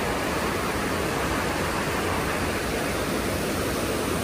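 Steady rush of whitewater from a mountain creek falling and churning through a narrow rock canyon just below.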